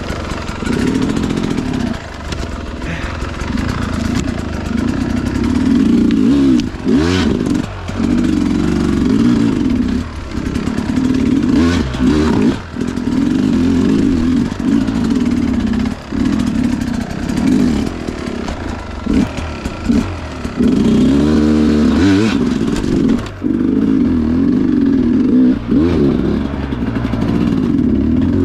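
Sherco two-stroke enduro dirt bike engine revving up and down over and over, with many short throttle chops and blips as it crawls through technical terrain. A few sharp knocks and some clatter are heard along the way.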